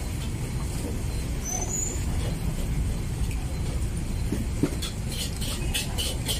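Steady low rumble of street traffic. About five seconds in, a quick run of short, even clicks starts, about three a second.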